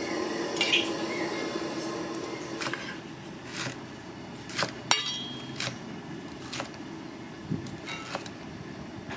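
Kitchen or dining-room background noise with scattered sharp clinks and knocks of dishes and utensils. One clink about five seconds in rings on briefly.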